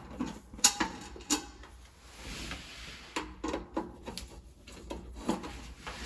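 Screwdriver working the screws on the thin sheet-metal access cover of an electric water heater as the cover is unscrewed and lifted off: a scatter of light clicks and knocks, with a soft rasp about two seconds in.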